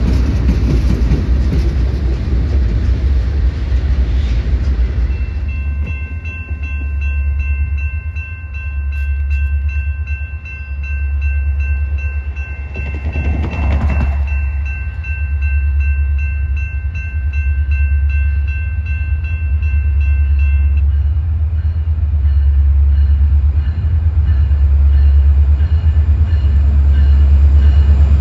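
Freight train passing close, a noisy rumble of wheels on rail for the first few seconds. Then a diesel locomotive's multi-tone air horn sounds long and steady from an approaching freight over a low engine rumble, stopping about three-quarters of the way through.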